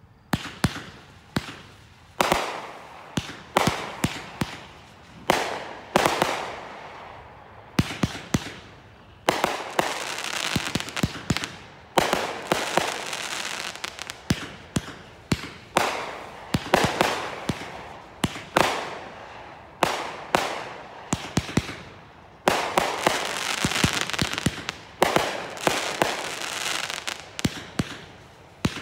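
Turf War Brothers multi-shot firework cake firing shot after shot: sharp bangs of the tubes launching and the shells bursting, every second or two and sometimes in quick clusters. Each bang is followed by a rush of fizzing noise that fades as the stars burn out.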